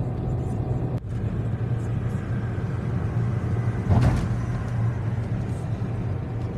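Road noise inside a moving car's cabin: a steady low drone of engine and tyres on the road, with one brief louder thump about four seconds in.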